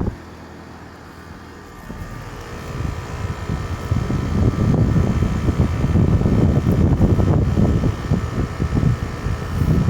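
2018 3.5-ton Goodman heat pump outdoor unit running in cool mode: a steady hum from the compressor and condenser fan. From about two seconds in, gusty air rushes over the microphone and covers much of the hum.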